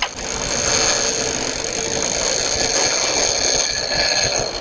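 Shimano Tiagra 130 trolling reel screaming in a steady, high-pitched whine as a fish that has struck the trolled lure strips line off against the drag.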